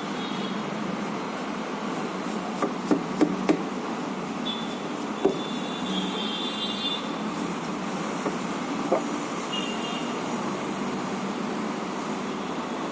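Light clicks and knocks of plastic printer parts being handled and brushed while the HP LaserJet 1020's sensor area is cleaned, several in quick succession about three seconds in and single ones later, over a steady background noise.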